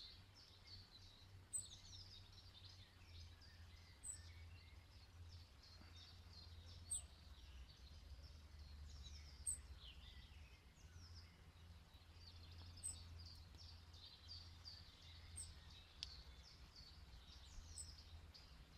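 Quiet, with faint birdsong: many short chirps and a thin high note repeated about every two and a half seconds, over a low steady hum.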